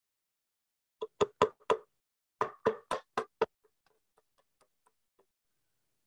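Hammer driving a small nail into a wooden board: four quick strikes about a second in, a short pause, five more strikes, then several faint light taps.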